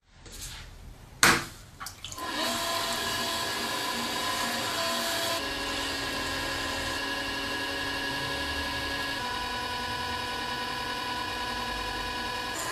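A potter's wheel running while wet clay is worked with hands and a sponge: a steady motor hum with wet, sloshing rubbing. A single loud knock comes about a second in, before the steady sound sets in.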